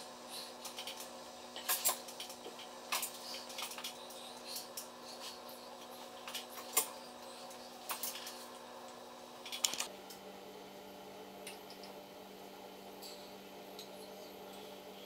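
A paintbrush tapping and clicking against a plastic paint palette and tabletop: small, irregular clicks that stop about ten seconds in, over a steady low hum.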